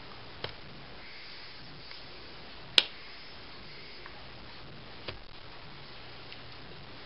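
A few sharp hand taps and claps made while signing, the loudest about three seconds in, over a faint steady hiss.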